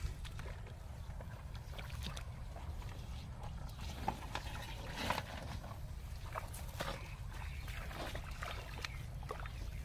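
Steady low rumble with scattered small clicks, rustles and squelches as a person wades in paddy mud and handles a metal basin of live crabs.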